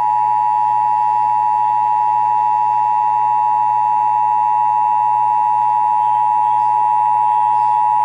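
Emergency Alert System two-tone attention signal: two steady tones just under 1 kHz (853 and 960 Hz) sounding together, unbroken and loud, the signal that an emergency alert message is about to follow.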